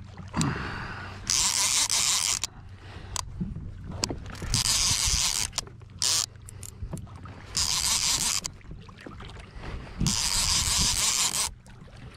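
Conventional fishing reel cranked in short spells while fighting a fish: four bursts of hissing whir about a second long each, a few seconds apart, with quieter pauses between.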